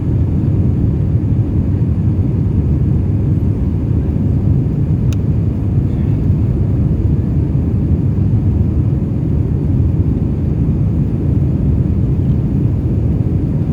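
Steady low rumble of an Airbus A320 airliner heard from inside the passenger cabin: engine and airflow noise, even in level throughout.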